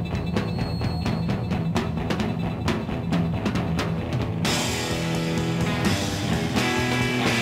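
Background music with a steady drum beat and bass line; the music grows fuller and brighter a little over halfway through.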